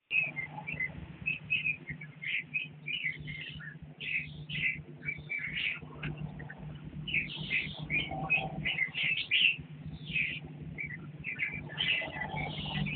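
Red-whiskered bulbuls chirping: a rapid, irregular run of short high chirps, over a steady low hum.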